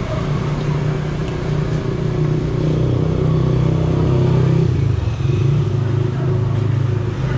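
A motor vehicle engine running steadily, its note dropping a little past the middle.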